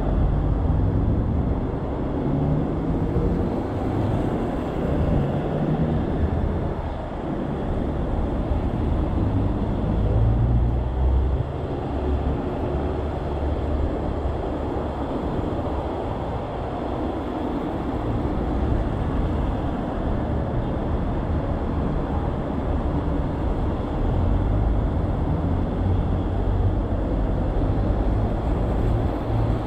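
Continuous road and traffic noise heard from a moving bicycle, with wind rumbling on the microphone.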